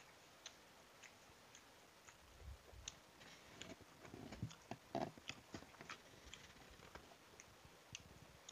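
Faint chewing and mouth noises of a person eating rice and noodle soup, with scattered light clicks of a metal spoon.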